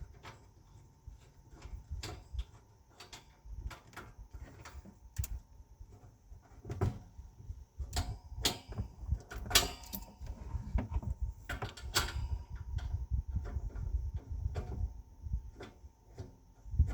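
Scattered clicks, taps and knocks of hands working a propane hose fitting onto a catalytic heater, over a low handling rumble, with a few louder knocks in the second half.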